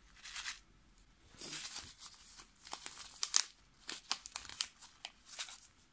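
Plastic sachet of Kneipp bath crystals crinkling as it is handled and turned over in the hands, in a string of short, irregular rustles.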